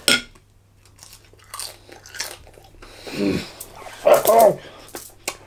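A person eating a thin-battered chip: a crisp bite at the start, then faint crunchy chewing. Two vocal noises made through a full mouth follow, and the second, about four seconds in, is the loudest sound here.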